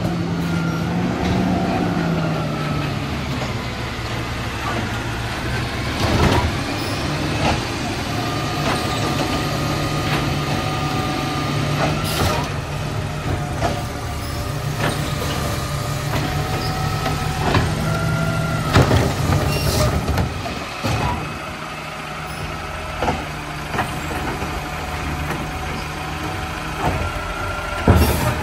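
Garbage truck engine running steadily while it picks up carts and packs its load, with a whine that comes and goes. Several sharp bangs and clunks sound about every six seconds as the carts are handled and the refuse is packed.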